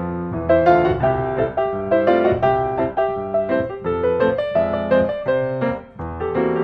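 Background piano music, a melody of notes played in quick succession over a bass line.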